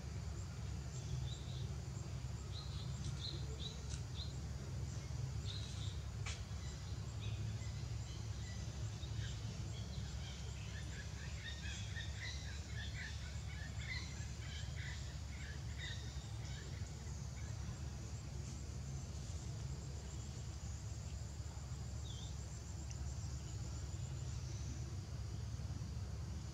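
Outdoor ambience: a steady low rumble with scattered faint, short, high bird chirps, most of them in a cluster around the middle, and one sharp click about six seconds in.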